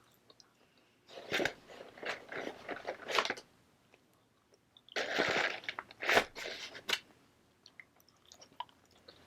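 Close-up mouth sounds of someone chewing french fries, in two stretches about a second and five seconds in, with small wet clicks between.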